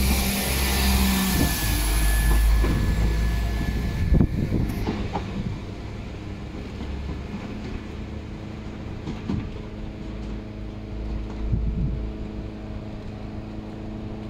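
Class 172 diesel multiple unit passing close by, with a loud low rumble and a thin steady wheel squeal for the first four seconds. Then a more distant diesel unit approaches with a quieter low engine drone and occasional clicks.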